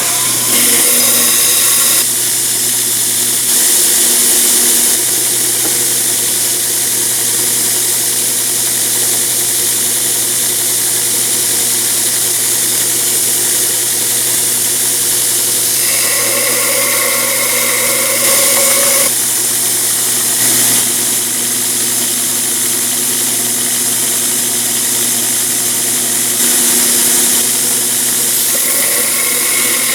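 Grinder running steadily as it grinds the face of a forged steel hammer head flat, with a strong hiss. Its tone shifts abruptly several times as the work changes.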